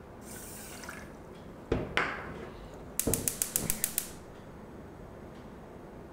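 Water poured into a steel saucepan, then two knocks as the measuring cup is set down, then a gas hob's burner knob turned and its spark igniter clicking rapidly, about eight clicks in a second, to light the burner.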